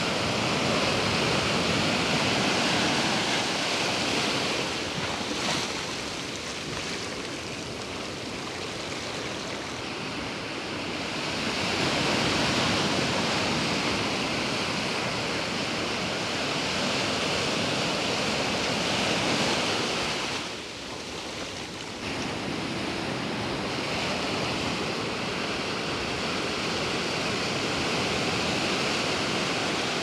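Large ocean waves breaking on the shore: a continuous rush of surf that swells and ebbs, with loud surges in the first few seconds and again about twelve seconds in.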